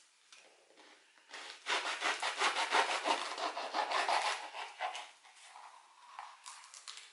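A knife sawing open a fried fricassé bread roll: a fast run of rasping back-and-forth strokes through the crisp crust, starting about a second in and dying away after about four seconds.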